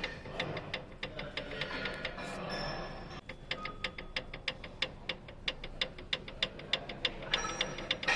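2019 Toyota RAV4 engine running with a rapid, regular knock, about four to five knocks a second over a steady hum. It is connecting-rod knock: the rods are loose and the engine has lost its oil pressure.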